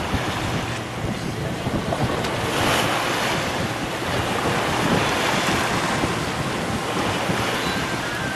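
Wind buffeting the microphone over the rush of waves and water along a sailing yacht's hull as it moves through open sea, swelling briefly about three seconds in.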